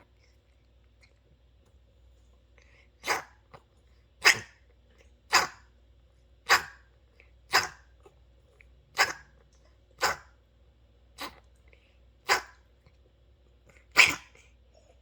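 Senior cat coughing in a run of about ten short, sharp hacks, roughly one a second, beginning about three seconds in. The cat has chronic nose and ear problems from untreated mites and infections.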